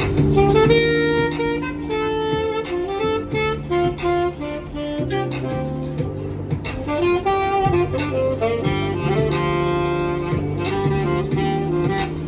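Saxophone playing a jazzy melody in short stepping phrases, over accompaniment of long-held low notes.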